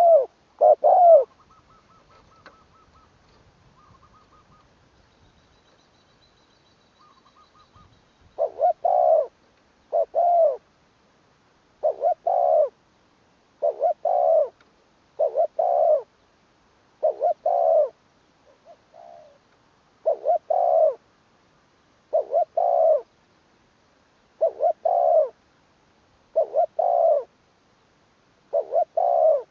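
Spotted dove cooing. Short phrases of two or three coos come about once every two seconds, after a pause of several seconds near the start.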